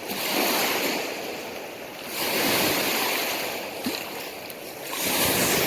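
Small lake waves washing onto the shore, swelling and fading three times, roughly every two and a half seconds.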